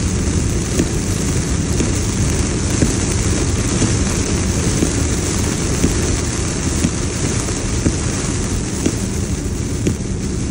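Heavy hurricane rain hitting a car's roof and windshield, heard from inside the moving car: a dense, steady patter of drops over the car's road and tyre noise on the flooded highway.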